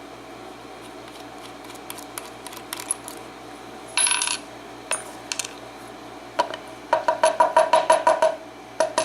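Small metal parts of a lock cylinder clinking as the retaining nut is worked off its back. There are a few light clicks, then a short ringing clink about four seconds in. Near the end comes a rapid run of evenly spaced metallic ticks.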